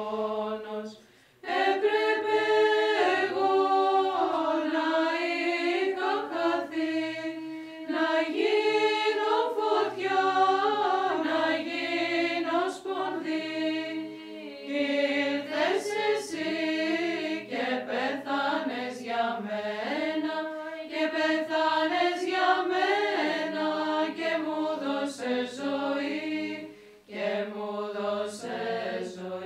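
Nuns' choir singing a Byzantine chant hymn, women's voices in melody over a low held drone note, with brief breaths about a second in and near the end.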